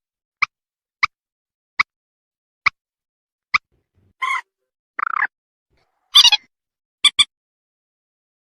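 Lure recording of a mandar (rail or moorhen) calling: a series of short, sharp notes about one a second, then a few longer, rougher calls, and a quick double note near the end.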